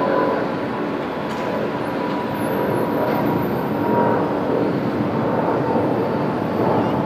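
Boeing 777-200's twin turbofan engines at takeoff thrust: a steady jet roar with a faint thin whine, as the airliner rotates and lifts off.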